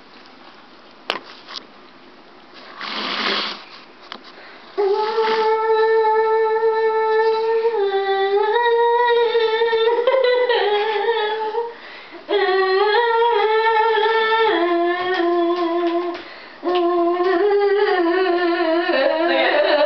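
A girl humming a slow tune in long held notes, three phrases with short breaks between them. It starts about five seconds in, after quieter room noise with a knock and a brief rustle.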